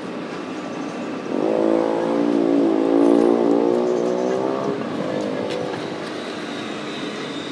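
A motor vehicle's engine swells loudly from about a second in and fades away by about five seconds, over a steadier, quieter engine-like hum.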